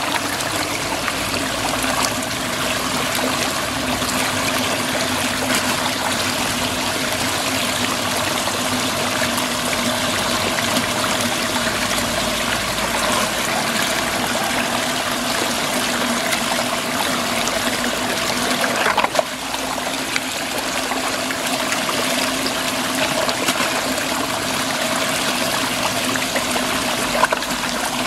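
Muddy water swirling in a whirlpool and draining down a hole: a steady rushing, trickling flow, with a faint steady hum underneath.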